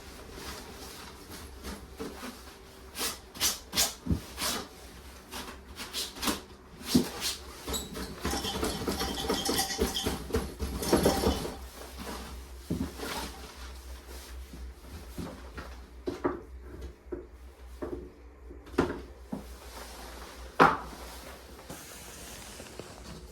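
Irregular clicks, knocks and rubbing of objects being handled, busiest around the middle, with one sharp knock near the end.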